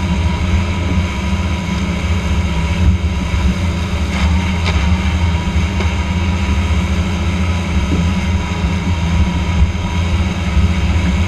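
Same Iron 150 tractor engine running steadily under load, driving a Krone EasyCut 3201CV disc mower cutting grass: a loud, even low drone with steady higher tones from the spinning mower drive.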